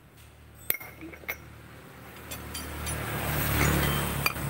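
A passing road vehicle's engine and tyre noise swelling louder through the second half. Two light metallic clicks come about a second in, from a CVT pulley and its new bearing being handled.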